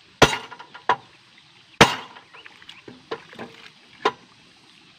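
A hammer striking the bent steel handlebar of a Quick E85 hand tractor, about five sharp blows at uneven intervals, the loudest near the start and about two seconds in, each with a short metallic ring. The blows are meant to knock the bent handlebar back into line without removing it, and the metal is resisting.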